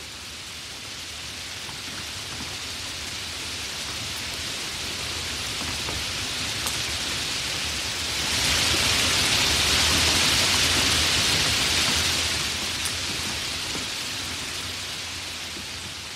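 Steady rain falling, a dense even hiss that swells to its loudest midway and then fades away.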